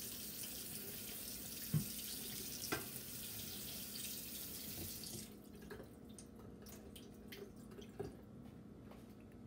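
Kitchen tap water running onto a salmon fillet in a metal colander in a stainless steel sink as the fish is rinsed. The water cuts off suddenly about five seconds in, leaving a few drips and light knocks of the colander.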